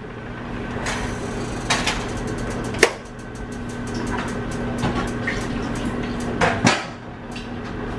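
Water rushing as a pot of boiled ziti pasta is drained, in two long pours with a few clanks of the metal pot. A steady low electrical hum runs underneath.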